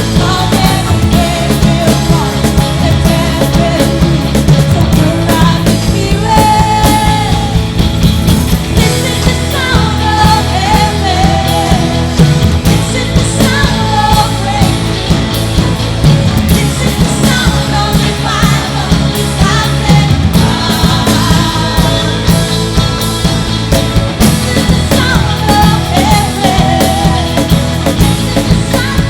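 Loud rock-style band music with a singing voice over a heavy, steady low end.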